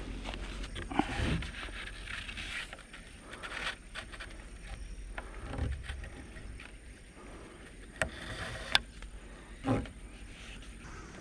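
Rustling and rubbing of a braided guy rope being wrapped and tied around a wooden post by hand, with a few sharp clicks and dull knocks.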